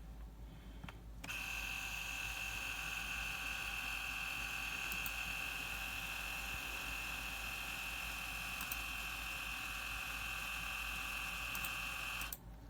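Small electric motor in a handheld thermal label maker running steadily with a high whine for about eleven seconds while feeding and printing a label. It starts about a second in and stops abruptly near the end.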